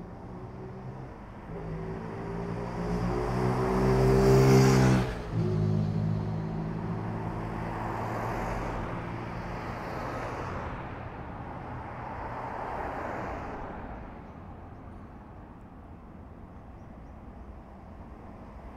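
Cars passing on a road. The loudest comes close about four to five seconds in, its engine note dropping sharply in pitch as it goes by. Two or three more cars pass with tyre noise over the next several seconds, leaving a low traffic hum near the end.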